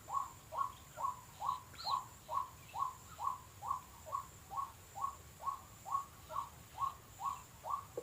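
White-breasted waterhen (ruak-ruak) calling: one short note, dipping in pitch, repeated steadily a little over twice a second.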